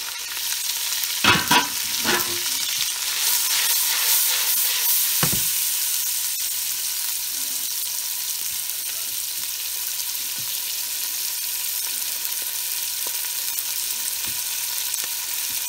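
Chopped red onions sizzling in hot oil with whole spices in a nonstick stockpot: a steady frying hiss. A few knocks come about a second in as the onions are tipped from a plate into the pot, and one more about five seconds in.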